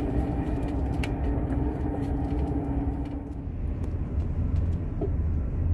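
Steady low rumble and hum of a train. A steady mid-pitched tone fades out about three seconds in, and a deeper hum grows stronger after it.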